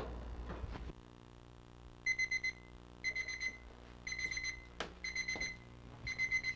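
Electronic kitchen timer beeping, a cluster of quick high beeps about once a second, signalling that the frittata's baking time is up.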